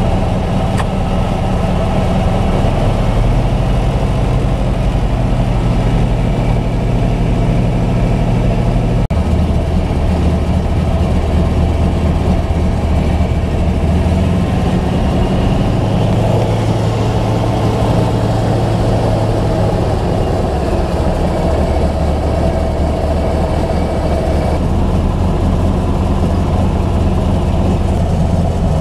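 The PZL-104 Wilga 35A tow plane's nine-cylinder radial engine and propeller running steadily under power, with its low note shifting in pitch several times.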